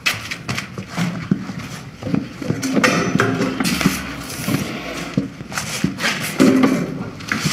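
Scattered light knocks and rustling of a chair being moved and clothing shifting as a man sits down at a table, with a brief murmur of voice.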